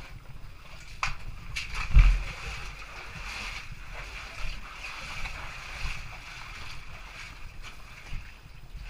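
Knocks and low rumble of movement on a helmet-mounted GoPro's housing, the loudest knock about two seconds in, over a steady hiss of water trickling in the rock cleft.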